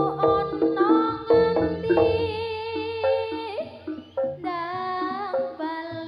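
Live Javanese jaranan music: a sustained melody that wavers in pitch, over short struck percussion notes and a steady low bass.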